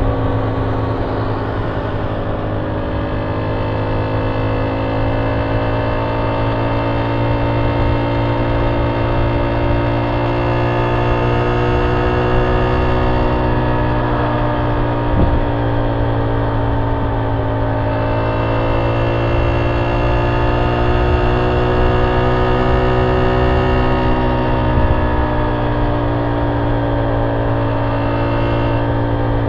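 Honda C70's small single-cylinder four-stroke engine cruising through an aftermarket banana-style ('pisang') exhaust, its note rising and falling gently with the throttle.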